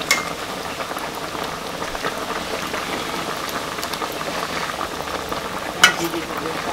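A pot of soup boiling, with a steady bubbling, while a metal spoon stirs it. A short clink at the start and a sharp, louder clink near the end as the spoon strikes the steel pot.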